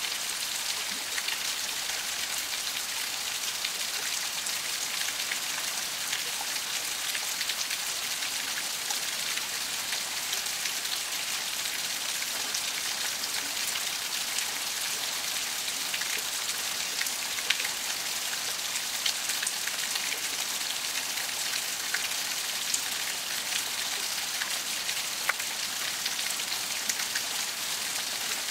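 Pouring rain falling steadily, a constant hiss with scattered sharper drop ticks.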